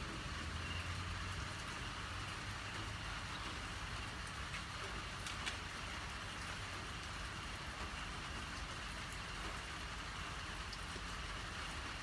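Steady rain falling and pattering on surfaces, an even hiss with scattered drop clicks. A low rumble underneath during the first few seconds.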